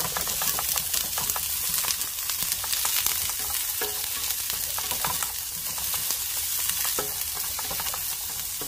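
Chopped onion and garlic sizzling as they sauté in a nonstick frying pan, with a steady hiss. A plastic slotted spatula stirs them, making frequent light scrapes and taps.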